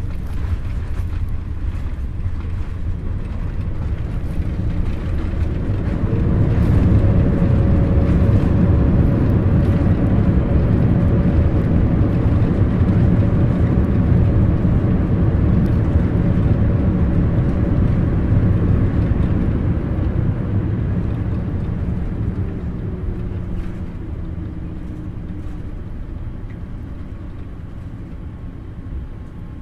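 Jet airliner's engines and landing roll heard inside the cabin: a loud, deep rumble that swells about six seconds in, holds, then slowly eases with a faint falling whine as the aircraft slows on the runway.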